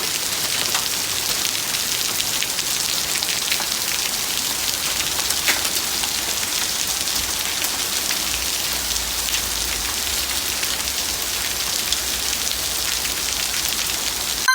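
Hail and rain pelting down in a steady, dense patter of many small, sharp hits.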